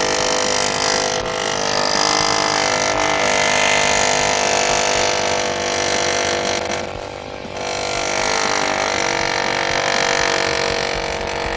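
Ingersoll Rand 114GQC pneumatic air chisel hammering its cutting bit through thick sheet metal. The sound is loud and steady, eases off briefly about seven seconds in, then picks up again.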